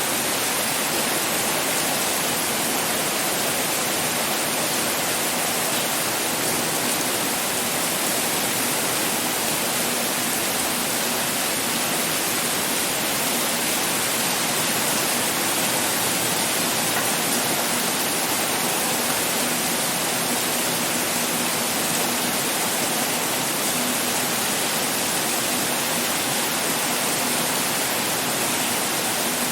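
Heavy rain pouring down: a steady, dense hiss with no breaks.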